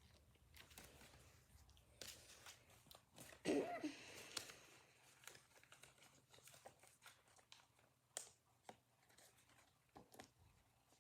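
Faint crinkling of plastic card sleeves and small clicks as trading cards are handled and slid into sleeves, with one brief louder rustle about three and a half seconds in.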